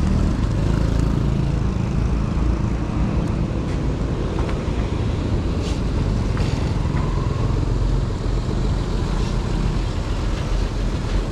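An engine running steadily: an even, low rumble with no change in speed.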